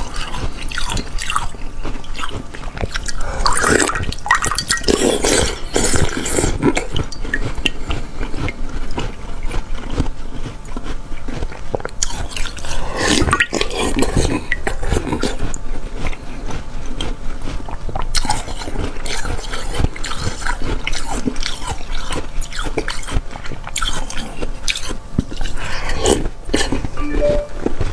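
A person biting and chewing slushy ice: a run of irregular crunching bites and chewing, with the crackle of ice breaking in the mouth.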